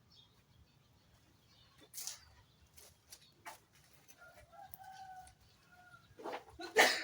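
A rooster crows once, a drawn-out call starting about four seconds in, among scattered sharp knocks. Near the end come two loud sharp knocks, the loudest sounds here.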